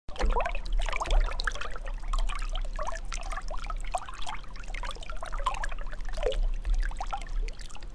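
Water bubbling and trickling: many short bubble blips rising in pitch, with scattered clicks, going on steadily.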